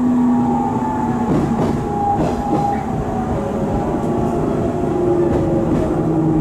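Inside a 719 series electric train car running: several whining tones from the bogie and traction gear slide slowly down in pitch, with faint clicks from the rails. The bogie gives off an abnormal 'jet' whine, which the uploader takes for bearings worn loose with age.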